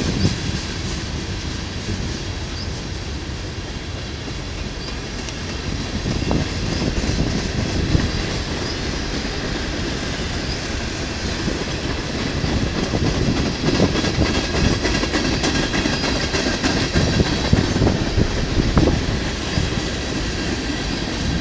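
Loaded freight cars of a manifest train, tank cars and covered hoppers, rolling past close by, their steel wheels clacking on the rails over a steady rumble.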